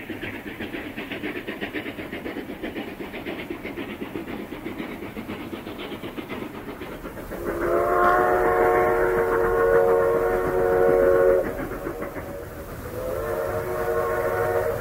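Steam locomotive chuffing rapidly and evenly, then its whistle blowing a long, chord-like blast of several tones together, with a second blast near the end.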